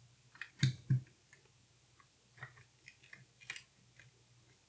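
Small clicks and knocks of tools and metal parts being handled while a Leica IIIF camera is taken apart: two louder knocks close together under a second in, then a few lighter clicks.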